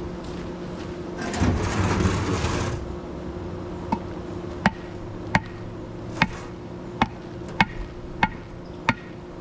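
Bricks being set and levelled for a hive stand: a gritty scrape lasting about a second and a half, then a run of sharp, evenly spaced taps, about three every two seconds.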